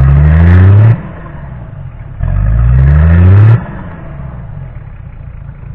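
Off-road 4x4's engine revved hard twice, each time rising in pitch for a second or so and then dropping abruptly back to idle, as the vehicle tries to drive out of a deep muddy rut.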